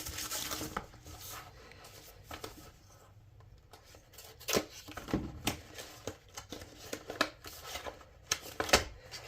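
A mailed package being opened by hand: scattered rustling, tearing and short clicks of packaging being handled.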